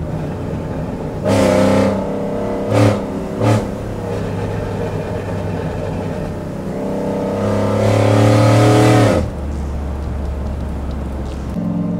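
Cammed Chevrolet Silverado pickup engine heard from inside the cab while driving. It swells briefly about a second in and gives two short throttle blips a second later. Then it revs up steadily for about two seconds under acceleration and drops off suddenly near the end.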